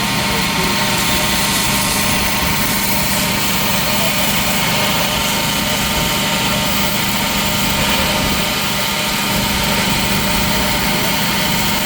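Forge-shop machinery running steadily: a constant mechanical drone with several steady hums and an even hiss, unchanged throughout.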